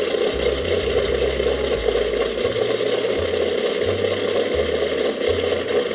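Steady mechanical running noise: a dense whirring clatter over a low hum that shifts in pitch every fraction of a second.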